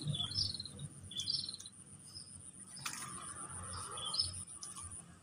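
Birds chirping in short, quick falling notes, repeated every half second to a second, over a steady high-pitched insect buzz that stops near the end. A few faint clicks.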